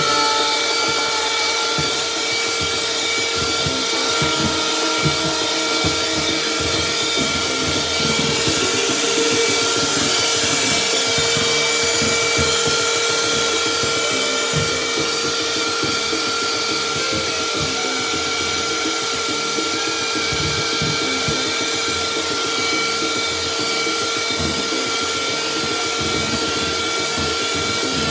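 Electric hand mixer running steadily at one speed, its beaters whisking a thick white mixture in a plastic bowl, with a steady motor whine.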